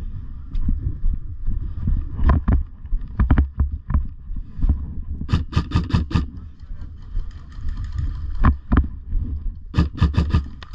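Airsoft guns firing in short bursts of sharp clicks. The longest burst is a rapid run of about six shots some five seconds in, with more near the end. Under the shots is a steady low rumble of wind on the microphone and the player moving.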